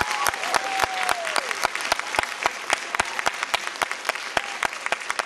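Audience applauding, a dense patter of many hands clapping, with a single voice calling out over it in the first second or so.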